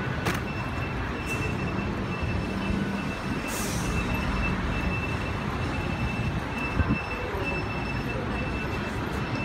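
Steady mechanical background noise, like a train or heavy traffic, with a faint steady high tone; a brief knock comes near the end.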